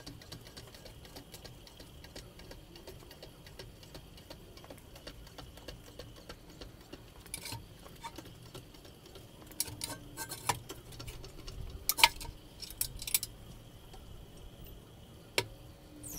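Faint, even ticking, then a few sharper metal clicks and clanks, the loudest about twelve seconds in, as a car is raised onto a wheel lift stand with a jack.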